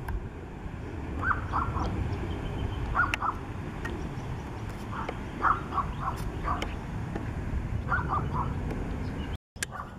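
A crow cawing in short runs of three or four calls, repeating every second or two, over the steady low rumble of a distant climbing jet airliner. The sound cuts out for a moment near the end.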